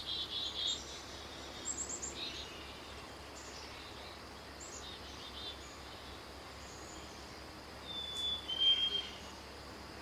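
Recorded black-capped chickadee sounds played through a phone's speaker: high chattering notes in the first two seconds, then about eight seconds in the two-note whistled spring song, 'fee-bee', with the second note lower.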